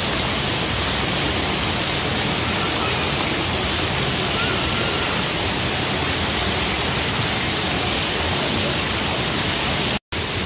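Steady wash of indoor swimming-pool noise: splashing and running water echoing in a large pool hall. The sound drops out for a split second near the end.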